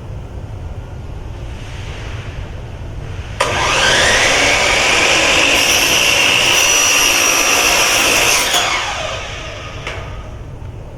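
Electric power saw starts about a third of the way in, whines up to speed and runs for about five seconds while cutting a relief notch in a metal wall track, then winds down with a falling whine.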